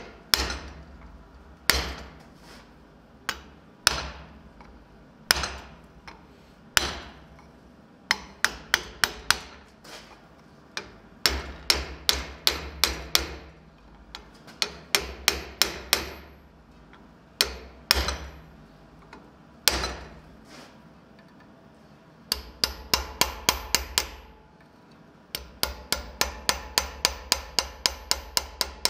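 Blacksmith's hammer striking red-hot steel on an anvil: single blows a second or two apart, then quicker clusters, and in the last several seconds fast runs of lighter, ringing strikes on a punch held against the hot steel.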